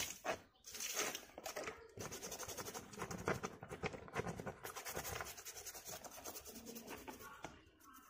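A hand scrubbing a plastic mesh air-conditioner filter under running water: a quick run of wet, scratchy rubbing strokes, dying away near the end.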